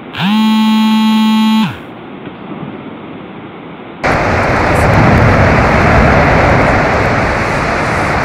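A single loud horn-like tone about a second and a half long. Then, from about four seconds in, a loud, steady rumble of a glacier's ice arch collapsing into the lake.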